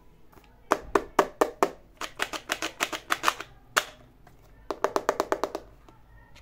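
Runs of quick, sharp clicks and taps from hard plastic toy pieces handled by hand: a short run, then a longer run of about ten, a single click, and a fast run of about eight near the end.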